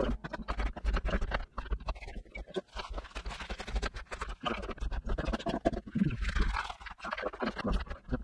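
Kitchen knife chopping wild garlic leaves on a plastic cutting board: a rapid, uneven run of short knife taps and scrapes.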